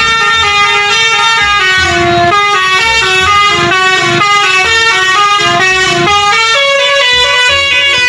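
Multi-tone 'telolet' bus horn playing a tune, one sustained note after another in quick steps.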